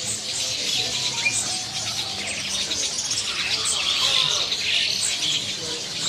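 Many caged songbirds chirping and singing at once, a dense overlapping chorus of high chirps and quick trills.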